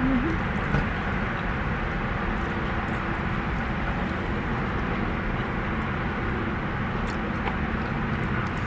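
Steady noise of a running car heard from inside the cabin, with a few faint clicks near the end from a plastic fork against a foam takeout container.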